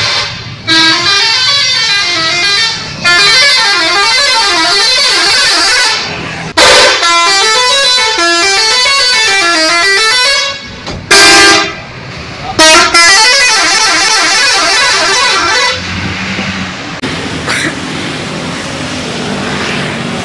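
A bus's multi-tone 'telolet' musical horn playing its rising-and-falling tune over and over, loud, with a few short steady blasts in between; it stops about four-fifths of the way in, leaving traffic noise.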